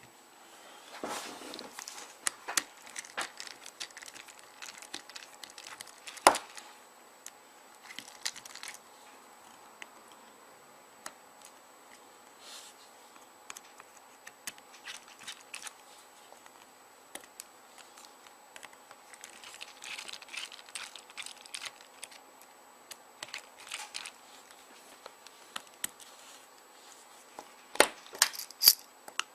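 Small clicks and scratches of a T6 Torx screwdriver and hands working on the back of a BlackBerry 9650 while its four back screws are removed. There is a sharp click about six seconds in and a few louder clicks near the end.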